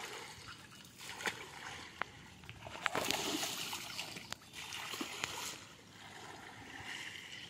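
Water splashing and sloshing, with a few sharp splashes; loudest from about three seconds in.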